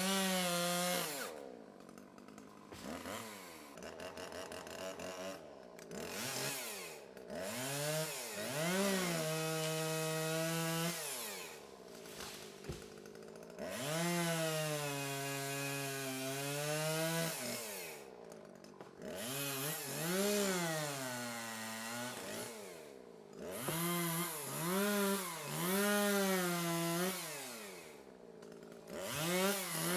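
Two-stroke chainsaw engine revved up and down over and over: it climbs to full throttle, holds there for one to three seconds at a time, then drops back toward idle before the next rev.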